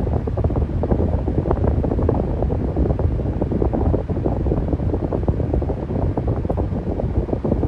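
Electric fan running steadily: an even, low rushing noise of moving air with a fast flutter in it.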